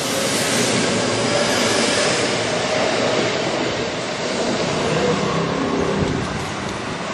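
Kintetsu 1026-series VVVF electric commuter train passing through a station at speed: a loud, steady running noise of wheels on rail. About six seconds in it cuts off abruptly to quieter train noise.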